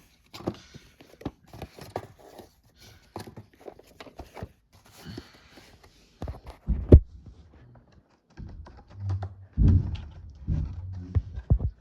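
A DVD case and its cardboard slipcover being handled: scattered clicks, taps and light rustles, with a few heavier thumps about seven seconds in and again around nine to ten seconds in.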